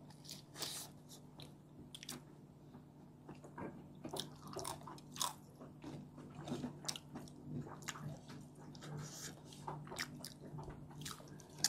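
Close-miked eating: people biting and chewing fried chicken, a string of irregular short wet clicks and crunchy crackles, over a steady low hum.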